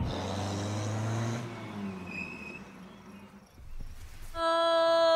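A vehicle engine's low drone fades away over the first second and a half. About four and a half seconds in, a man starts a loud, long, steady howl through cupped hands, imitating a wolf to call young wolves.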